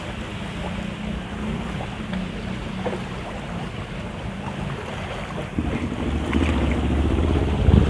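Wind buffeting the microphone over open sea, with a low motor hum underneath that gets louder from about two-thirds of the way through.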